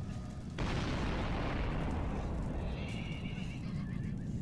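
Cinematic battle sound effects over a steady low rumble: a sudden crash about half a second in that fades away over two seconds, then a high whinnying call about three seconds in.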